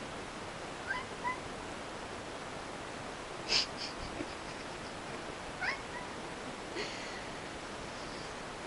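A cat making a few short, rising chirp-like calls, with a louder brief rustle or knock about halfway through, over a steady hiss.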